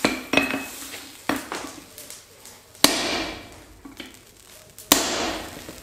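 Hand hammer striking a steel hammer eye punch driven into a red-hot hammer blank on the anvil: sharp metallic blows with a brief ring, a second or more apart, the loudest about three and five seconds in, with lighter taps between.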